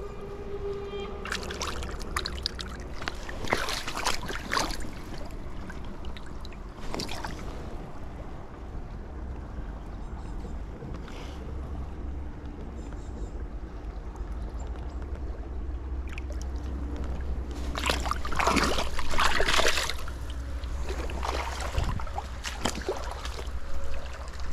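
Shallow stream water splashing and sloshing around hands as a chub is held and released in the current, in irregular bursts with a louder stretch of splashing about three-quarters of the way through, over a steady low rumble.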